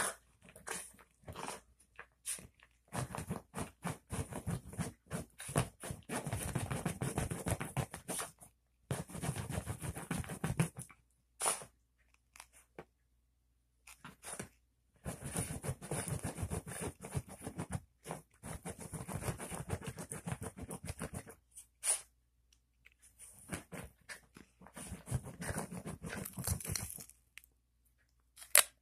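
A Chihuahua rubbing and rooting against fabric couch cushions, giving scratchy rustling and crunching in irregular bursts of a second or two with short pauses between.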